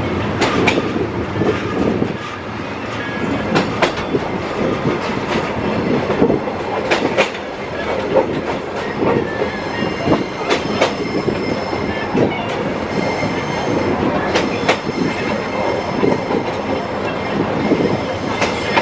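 Tourist train running slowly along old jointed track: a steady rumble of wheels on rail broken by irregular clicks and knocks as the wheels cross rail joints. Thin high wheel squeal comes in during the later part.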